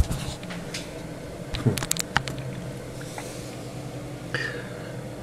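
A quick cluster of sharp clicks and knocks about two seconds in, with single clicks at the start and near the end, over a steady low hum.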